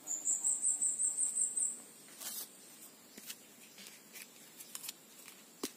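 A high-pitched insect call, a rapid run of about five pulses a second lasting nearly two seconds, over a faint steady insect drone. After it come scattered light clicks and rustles, with one sharper click near the end.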